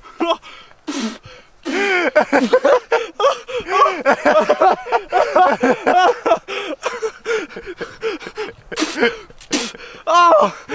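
Young people's voices talking and exclaiming excitedly, not clear enough to make out, with a few short hissing noises in between.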